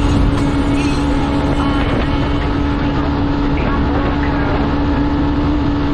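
Yamaha SZ-16's single-cylinder engine running steadily at cruising speed while riding, with wind noise on the microphone.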